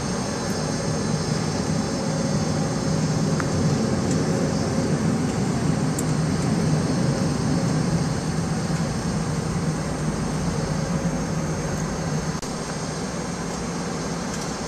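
Cabin noise inside a Boeing 757 on the ground: a steady, low rush of engine and air-conditioning noise, a little louder in the middle.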